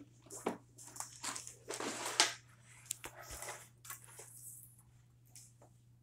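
A large art-set case of crayons, coloured pencils and markers being handled and opened on a table: a string of irregular clicks, knocks and rattles from its clasp, lid and contents, the sharpest about two seconds in.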